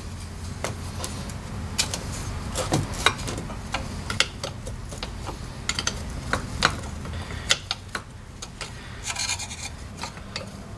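Irregular light clicks, taps and rubbing as metal parts and hand tools are handled during bench work on a fuel pump and filter assembly, over a low steady hum.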